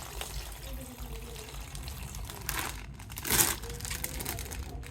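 Plastic toy packaging crinkling and rustling as it is handled and opened, with one sharper crackle about three seconds in.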